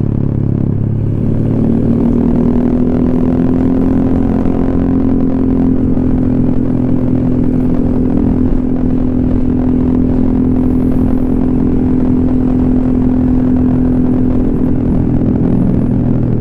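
Honda ADV 150 scooter's single-cylinder engine running through an SC Project aftermarket silencer while riding. The note rises about a second and a half in, holds steady at a cruising pace, then eases off near the end.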